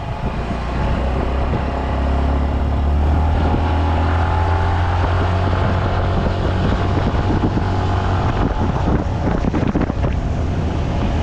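Yamaha RayZR 125 scooter's single-cylinder engine running while riding, with wind on the microphone. A cluster of short rattles and knocks about eight to ten seconds in, the body rattle that shows when riding slowly or over rough road.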